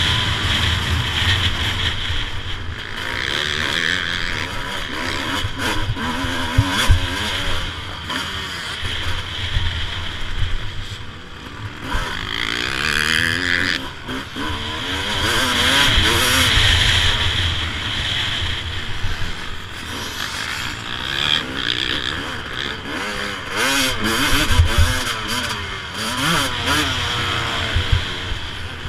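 Suzuki RM 250 two-stroke motocross engine being ridden hard, revving up and dropping back again and again as the rider works the throttle and gears.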